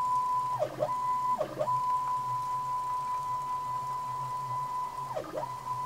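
A stepper motor drives the ball screw of a DIY CNC Z-axis at its maximum speed of 1500 mm per minute, giving a steady whine. Three times the pitch drops sharply and climbs back as the carriage slows, reverses and speeds up again.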